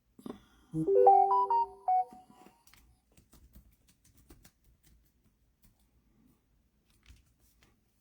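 A short electronic chime: a quick rising run of notes about a second and a half long, starting just under a second in. Faint clicks follow.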